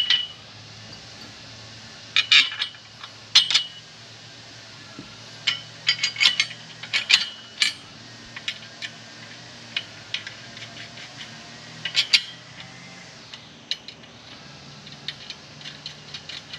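Metal frame parts and bolt hardware clinking and clanking as a quarterback net's uprights are fitted: sharp, irregular clinks, some coming in quick clusters, the loudest about 2 and 3 seconds in and around 6 to 8 and 12 seconds.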